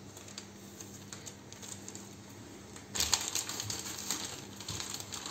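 Zip-lock plastic bag crinkling and crackling as hands press the air out of it, starting about three seconds in.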